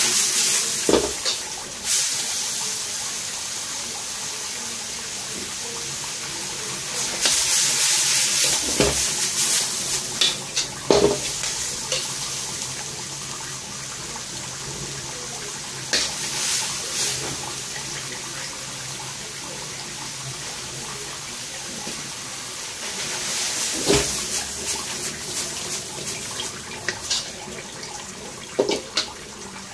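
Stir-frying in a carbon-steel wok: a steady sizzle of noodles, bok choy and meat frying over the flame, swelling louder when the food is tossed. A metal spatula clacks and scrapes against the wok every few seconds.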